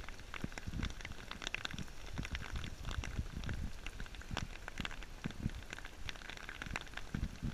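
Hail mixed with rain pelting a wooden deck and the yard: a dense, irregular patter of small sharp hits over a steady rush. The biggest stones are about nickel-sized.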